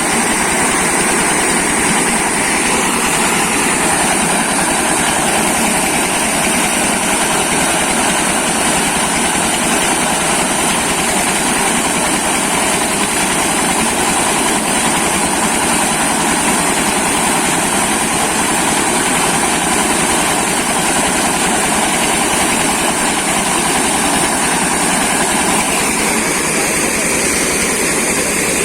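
Corn milling machine running loud and steady, a dense mechanical noise with a high steady whine, shifting slightly in tone near the end.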